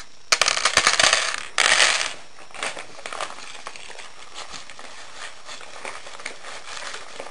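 Wrapping bag of small hard pieces handled and shaken, crinkling with quick clicks and clinks, loudest for about the first two seconds, then quieter crinkling.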